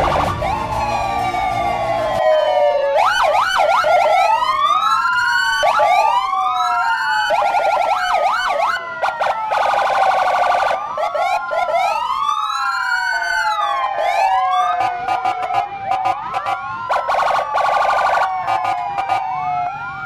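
Several police vehicle sirens sounding at once, overlapping slow wails and fast yelping warbles that sweep up and down in pitch.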